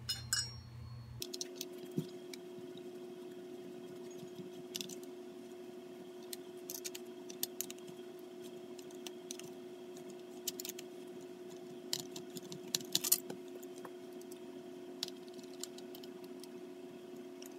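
Scattered light metallic clicks and taps of steel tools and steel pistol parts being handled during disassembly, including a pin punch worked under the frame. A steady faint hum runs underneath from about a second in.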